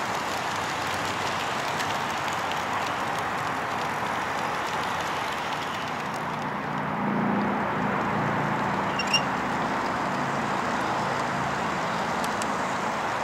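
HO-scale model passenger train rolling past on the track over a steady rushing outdoor background noise. A low hum joins about seven seconds in, and a short sharp beep sounds about nine seconds in.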